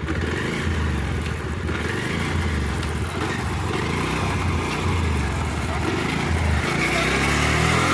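Bajaj Pulsar 150's single-cylinder engine running in fifth gear, driving the chain over a newly fitted front sprocket. The knocking 'khat khat' from the worn sprocket is gone; only a slight noise from the old chain's rollers remains.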